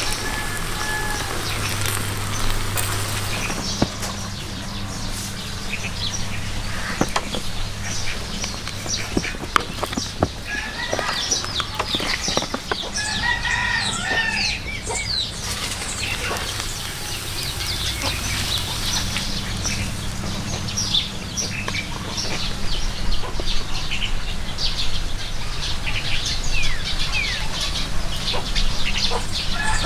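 Chickens clucking, with a rooster crowing a few times, amid many quick high chirps and scattered clicks over a low steady hum.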